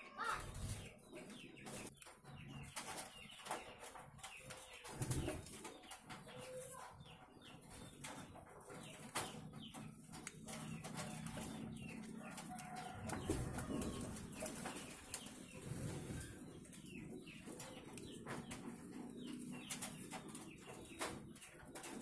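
Collared doves (puter) cooing low and drawn-out in an aviary, with wing flutters and scattered small clicks.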